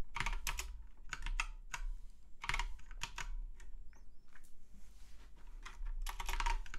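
Typing on a computer keyboard: irregular clusters of keystrokes with short pauses between them.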